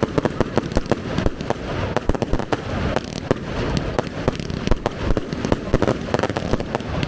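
Fireworks display going off in a dense barrage: many sharp bangs and crackles every second, without a break.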